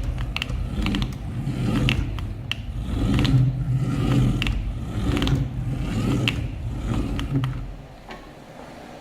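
Toy-grade RC car's electric drive motor and gearbox whirring in uneven surges as it is driven, with scattered clicks and knocks from the chassis and wheels. The drive stops about eight seconds in.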